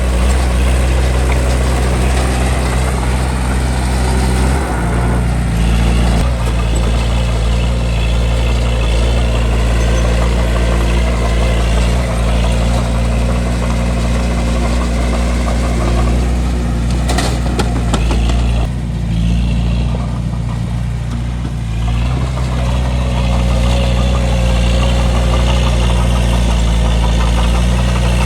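Bulldozer's diesel engine running steadily, its pitch shifting as the load changes about four and a half seconds in and easing off for a few seconds past the middle. A few sharp clanks come just before that easing.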